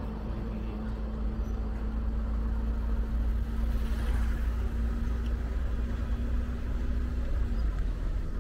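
Motor vehicle engine running with a steady hum over a heavy low rumble; the engine note dips slightly near the end.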